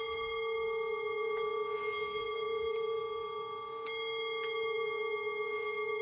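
Sustained ringing drone of a singing bowl: a steady low tone with several higher overtones held unbroken, and a few faint ticks now and then.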